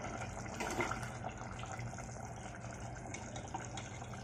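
Thin vegetable curry simmering in a steel pot while a steel ladle stirs through it, the liquid bubbling and sloshing, louder for a moment a little under a second in.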